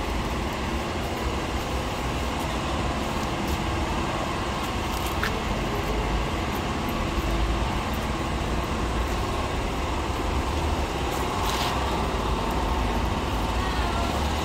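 Steady street traffic noise: a continuous low rumble of passing vehicles with the general bustle of a busy roadside.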